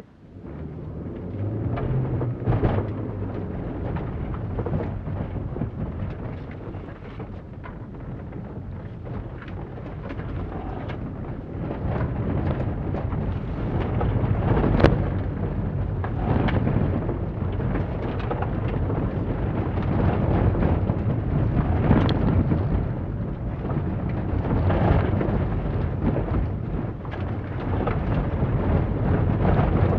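Cabin noise of a 2006 Holden Barina hatchback driven hard on a loose dirt course: the engine working under load beneath a loud rumble of tyres on gravel. Many sharp knocks and rattles come through, as of stones hitting the underbody, the loudest about halfway through and again a few seconds later. It starts suddenly as the run begins.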